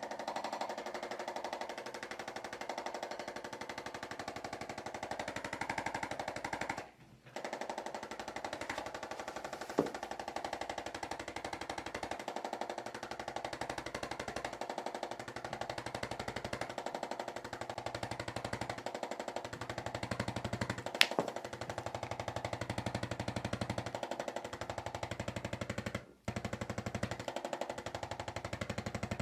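A motorised device running with a rapid, steady pulsing rattle. It breaks off briefly twice. Two sharp clicks stand out, one about a third of the way in and a louder one about two-thirds in.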